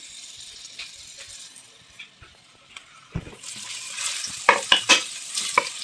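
Sliced red onion sizzling in hot oil in a stainless steel pan as it is sautéed. The hiss is faint at first; a thump comes about three seconds in, then the sizzling grows louder, and near the end a wooden spatula stirs with sharp scrapes and knocks against the pan.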